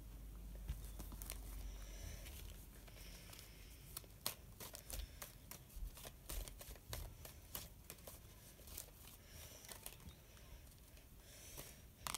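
Tarot cards being handled on a cloth-covered table: a faint run of soft card clicks and paper rustling.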